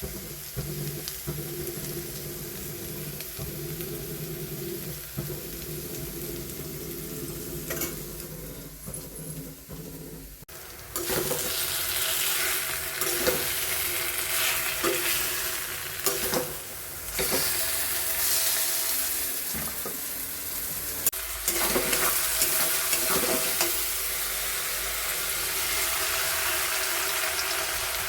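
Food sizzling in hot oil in a pan while it is stirred with a spatula, with repeated scraping strokes. The sizzle gets much louder about ten seconds in.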